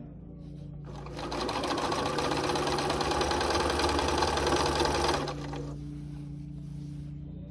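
Computerized sewing machine stitching binding onto a quilt, a fast even rattle of the needle that starts about a second in, runs for about four seconds, and then stops.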